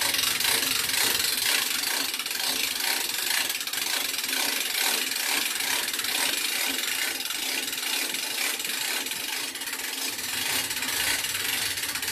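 Hand winch on a Mad Dog Metalworks Nomad One receiver-hitch game hanger being cranked steadily, its ratchet pawl clicking in a fast, unbroken run as the cable hoists the weight of a deer carcass.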